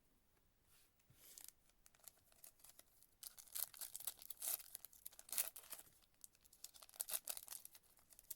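Wrapper of a trading-card pack being torn open and crinkled: a run of sharp crackles that gets louder about three seconds in.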